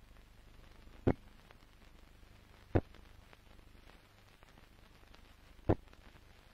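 Faint steady hiss of an old film soundtrack, broken by three sharp clicks at uneven intervals: about a second in, near three seconds, and near six seconds.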